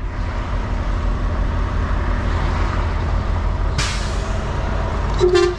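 Volvo semi-truck's diesel engine running at low speed, heard from the cab, with a short sharp air-brake hiss about four seconds in. A brief horn toot sounds near the end.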